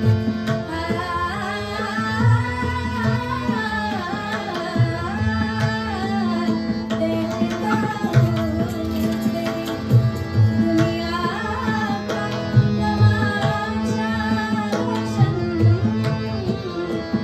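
Ghazal music: tabla playing a steady rhythm with prominent deep bass-drum strokes, under a woman's sung melody that bends and glides, over a keyboard note held low beneath.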